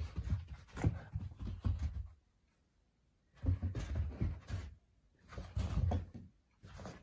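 Cockalier puppy playing rough with a sock on carpet: bouts of scuffling and low thuds with a few sharp clicks, broken by short pauses.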